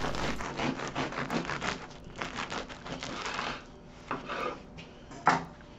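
Serrated bread knife sawing through the crisp crust of a sourdough loaf, the crust crackling with each quick stroke. The sawing stops about three and a half seconds in, followed by a few softer crackles and one sharp crack near the end.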